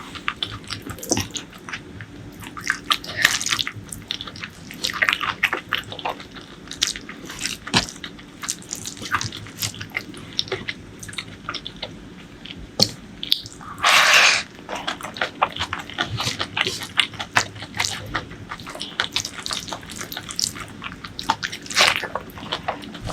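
Close-miked eating: wet chewing and lip smacks, with many short clicks, and a brief louder rush of noise about fourteen seconds in.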